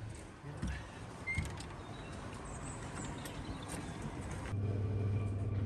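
Background ambience with a few scattered clicks and knocks; about four and a half seconds in it gives way abruptly to a steady low electrical hum.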